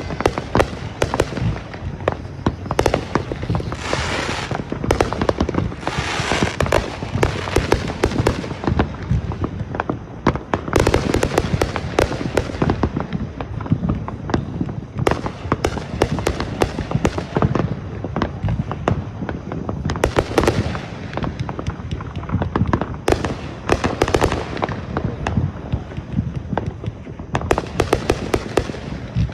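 Fireworks show barrage: a rapid, near-continuous run of sharp pops and bangs from aerial shells and single shots, with several stretches of hissing crackle among the reports.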